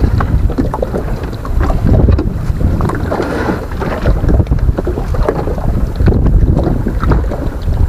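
Wind buffeting the microphone in a loud, uneven low rumble, with choppy water lapping against a small wooden boat.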